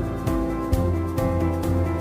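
Background music: an instrumental track of held notes that change every half second or so, over a light steady beat.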